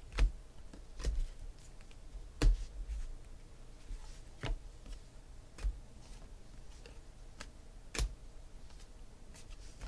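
Glossy 2016 Panini Phoenix football cards being flipped through and sorted by hand, giving sharp, irregular clicks and snaps of card stock every second or two, about six plain ones.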